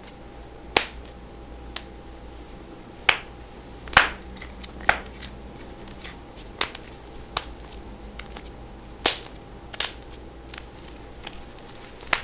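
Knuckles cracking: a dozen or more sharp pops at uneven intervals, some in quick pairs, over a faint steady hum.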